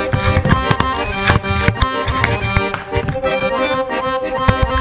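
Instrumental background music: held notes over a steady rhythmic beat.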